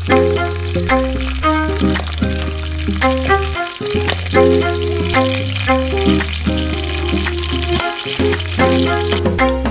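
Garlic slices, green chillies and dried red chillies sizzling and crackling in hot oil in a steel pan, now and then stirred with a spatula. Instrumental background music with a steady bass line plays over it and is the loudest sound.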